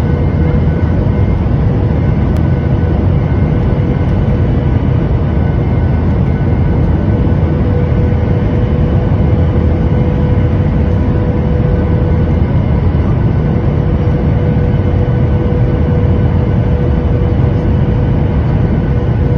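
Cabin noise inside a Boeing 737-800 on final approach: a steady rush of airflow and its CFM56-7B turbofan engines, with a steady tone running through it.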